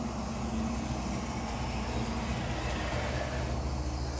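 Steady low hum of a running kitchen appliance, with a faint even hiss above it.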